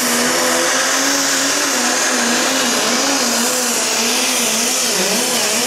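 A Pro Stock pulling tractor's turbocharged diesel engine at full throttle under load during a pull. It runs loud and steady, its pitch wavering up and down.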